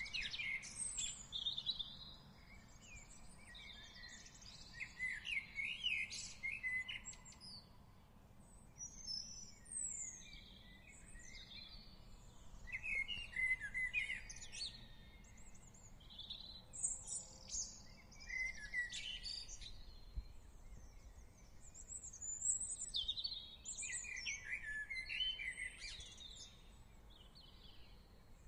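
Garden birdsong: songbirds singing short, varied chirping phrases one after another, with brief gaps, over faint low background noise.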